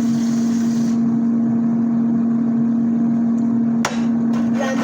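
A steady, loud, even electrical hum on one low pitch, broken by a short click about four seconds in.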